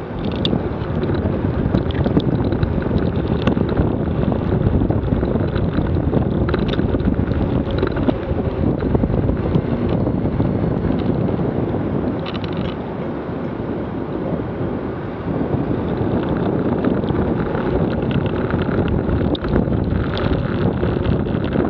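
Wind rumbling on the microphone of a camera riding on a moving vehicle through wet streets, with the hiss of tyres on the wet road beneath; it eases a little about halfway through, then picks up again.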